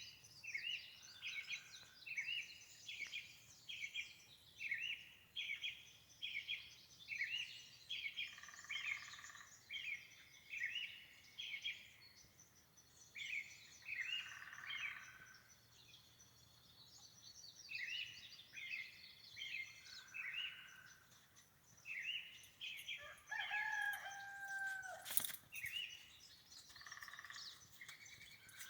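Spring forest chorus of short high chirping calls repeated about once a second, with a longer, steadier call standing out about three-quarters of the way through and a brief click just after it.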